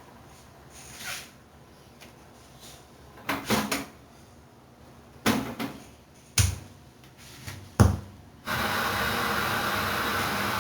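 A handful of separate clunks and clicks, several of them in quick pairs. About eight and a half seconds in, a steady hiss starts abruptly and holds.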